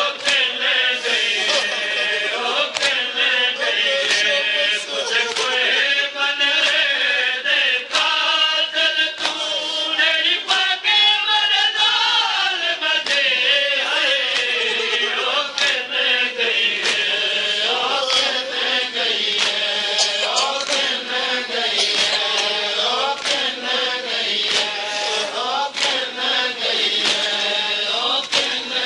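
Men chanting a Shia noha (lament) in unison, accompanied by repeated sharp slaps of open hands on chests (matam) beating out the rhythm.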